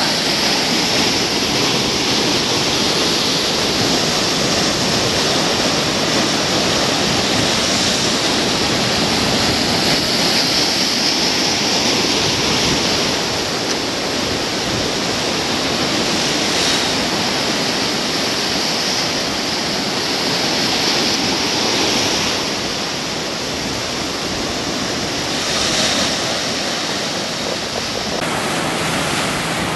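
Ocean surf breaking over a rocky shore: a steady rush of white water and foam, louder in the first dozen seconds and easing a little after.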